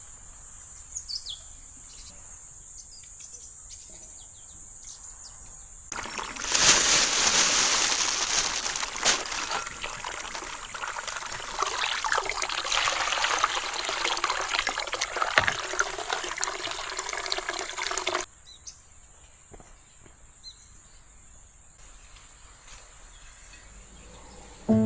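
Water running steadily for about twelve seconds, starting abruptly about six seconds in and cutting off suddenly. Before and after it, a faint steady high-pitched hum with a few short bird chirps near the start.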